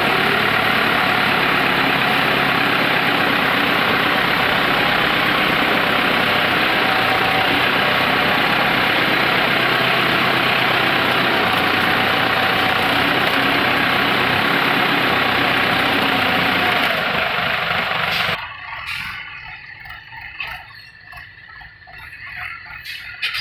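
Godrej forklift engine running steadily as it carries a pallet of bricks, heard loud and close from the operator's seat. About 18 s in it cuts off abruptly, leaving a much quieter sound with a few sharp clicks.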